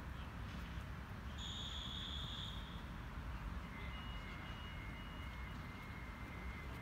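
Faint outdoor background noise: a steady low rumble. A thin high steady tone sounds briefly about a second and a half in, and a fainter steady tone comes in from about halfway through.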